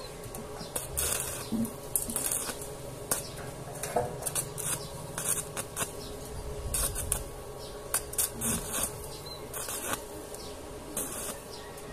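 Stick (arc) welding on steel channel: the arc crackling and sizzling in short, irregular spurts with brief gaps between.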